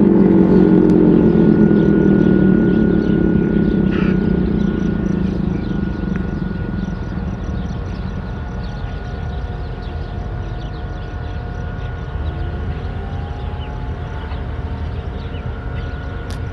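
Outdoor warning siren winding down at the end of its test: its tone slides steadily lower and fades over the first six seconds or so. A low steady rush of outdoor noise with a faint thin tone follows.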